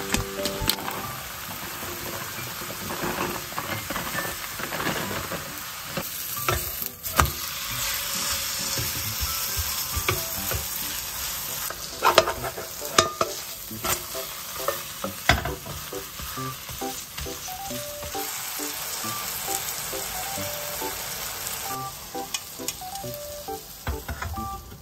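Cabbage pancake frying in oil in a pan, sizzling steadily, with sharp knocks and scrapes of a wooden spatula against the pan now and then. The sizzle drops away near the end.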